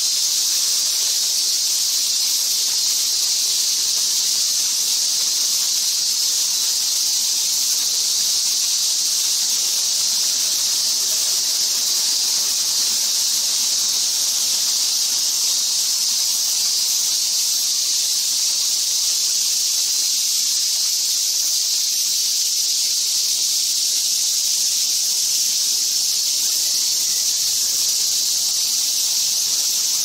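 Steady, unbroken high-pitched hiss of an insect chorus, with no calls or knocks standing out.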